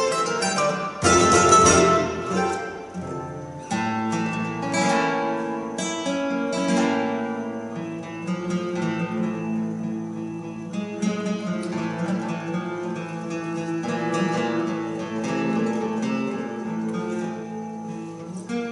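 Mandolin, acoustic guitar and double bass playing together. Loud strummed chords come in the first two seconds, then a softer passage of plucked guitar and mandolin over long, held low notes.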